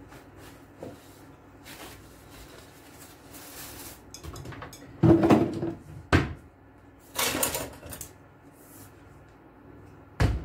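Kitchen handling noises: a wall cupboard door opened and shut, with knocks and clatter of a bowl and utensils on the worktop. Several separate sharp knocks and clatters, the loudest about five and seven seconds in, with one more near the end.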